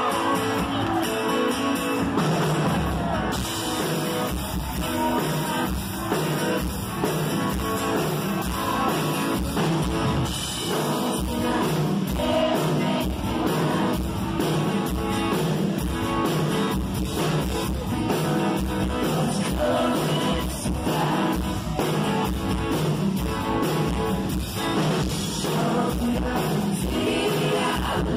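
Live pop-rock band playing: two strummed acoustic guitars over a drum kit keeping a steady beat, with a lead vocal singing over them.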